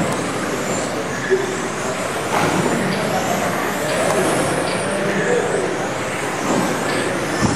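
Electric RC touring cars on 17.5-turn brushless motors and rubber tyres racing on a carpet track. Their motors give faint whines that rise and fall as the cars speed up and slow down, over a steady reverberant hall din.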